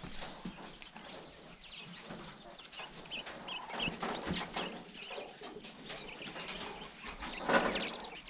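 Farm birds calling: many short, high chirps and clucks, with a louder burst about seven and a half seconds in.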